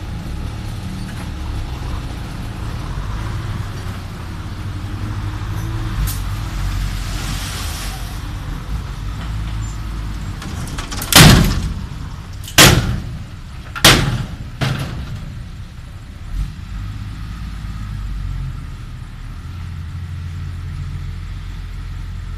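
Diesel engine of a six-wheel dump truck running steadily, with four loud bangs in quick succession a little past the middle as the emptied, tipped dump body's tailgate slams.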